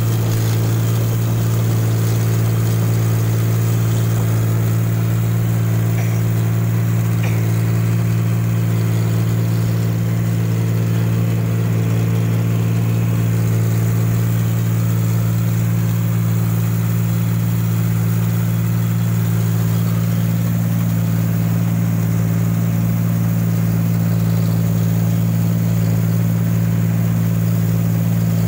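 Rice combine harvester running as it harvests standing rice: a loud, even engine drone that holds steady throughout.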